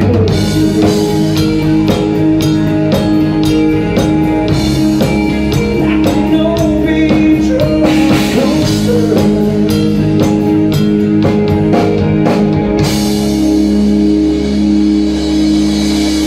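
Live rock band playing electric guitar, bass, drum kit and vocals at full volume. About 13 seconds in the drumming stops and the band ends on a held chord under a cymbal crash.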